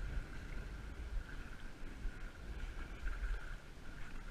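Wind buffeting the microphone, with brief splashes as a hooked striped bass thrashes at the surface. A faint steady whine runs underneath.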